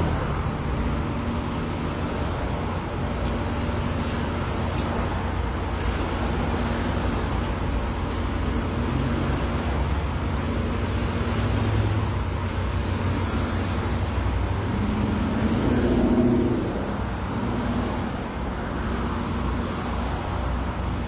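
Road traffic on a busy multi-lane street: cars driving past in a steady rumble, swelling louder about fifteen seconds in.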